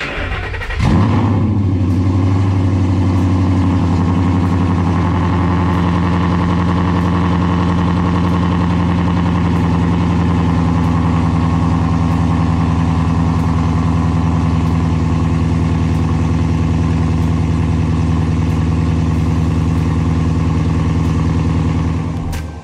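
2012 Ford Mustang Boss 302's 5.0-litre V8 starting up about a second in, then idling steadily and loudly through open side pipes (Pypes muffler delete) with long-tube headers.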